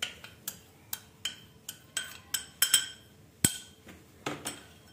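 A glass bowl knocked and tapped against a plastic mixing bowl to empty the flour, about a dozen quick, irregular clinks and taps with one louder knock about three and a half seconds in.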